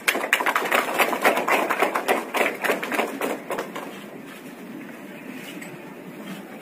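A short round of hand-clapping from a small audience, dense and irregular, dying away after about three and a half seconds.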